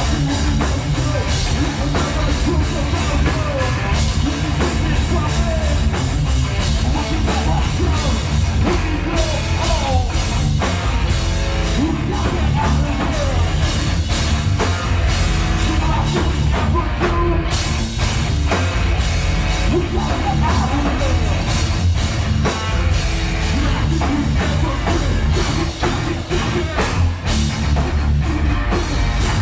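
Heavy metal band playing live: a pounding drum kit under loud, dense guitar and bass, with a vocalist singing into a microphone.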